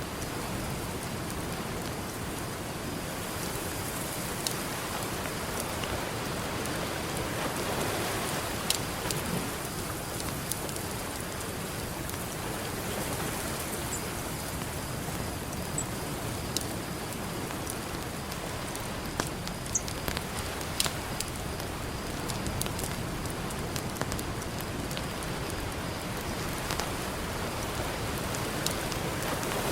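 Campfire crackling, with scattered sharp pops, over a steady wash of ocean surf that swells about eight seconds in.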